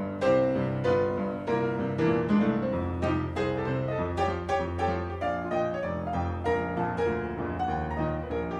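Instrumental piano music with a held bass line under it.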